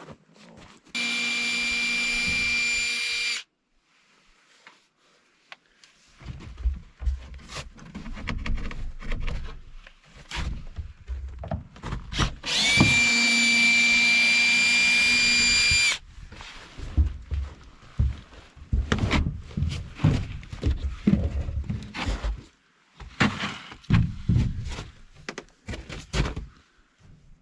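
Cordless power drill running at one steady speed twice, for about two and a half seconds and then about three seconds, each run starting and stopping abruptly. Knocks and low handling rumbles fill the gaps between.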